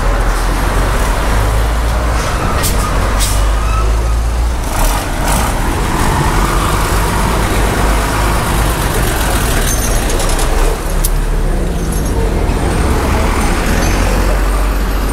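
Road traffic on a busy street: vehicles passing, with a constant low rumble.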